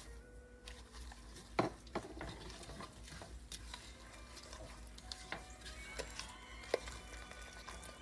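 A plastic spatula stirring and scraping thick custard filling in a pot, with scattered sharp clicks as it knocks against the pot, the loudest about one and a half seconds in and near the end.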